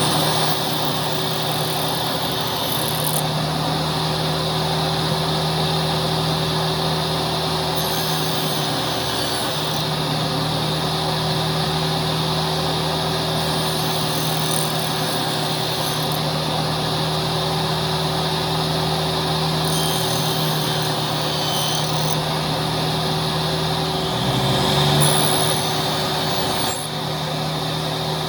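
An electric woodworking power tool running steadily, its motor hum wavering briefly a few times, with short high scratchy passes every few seconds as it works the wood.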